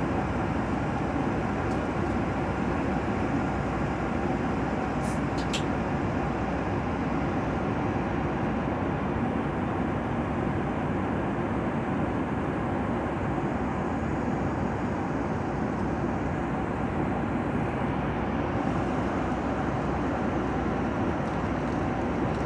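Steady cabin noise of a jet in flight: an even rush of air with a low drone beneath it.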